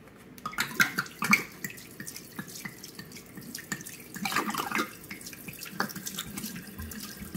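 Red wine poured from a glass bottle straight down a kitchen sink drain, splashing unevenly with small drips and spatters and a louder gush about four and a half seconds in.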